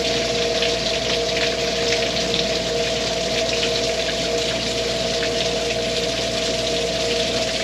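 Sanitizing water draining from an RV's fresh water tank, gushing from the underside and splashing onto gravel, with a steady two-note hum running alongside.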